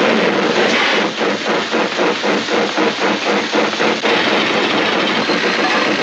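Hand-cranked sound-effects machine making a rhythmic mechanical chugging, about four beats a second, like a train's running noise; after about four seconds the beat blurs into a steady rush.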